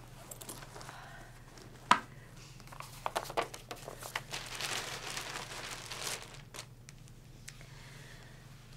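Rustling and crinkling of material being handled, with a sharp click about two seconds in, a few smaller clicks a second later, and a longer rustle from about four to six seconds, over a low steady hum.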